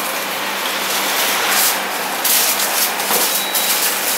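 Aluminium foil crinkling and rustling as a burrito is folded and wrapped by hand, in irregular bursts that are busiest in the second half, over a steady low hum.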